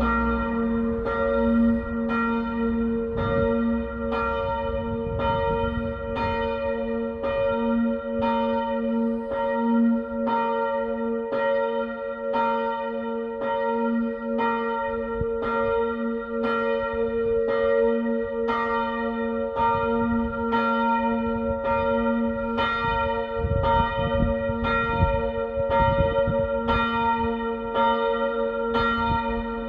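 Church bells ringing the six o'clock evening peal in a steady swing, strokes coming about once a second over a continuous hum of overlapping bell tones.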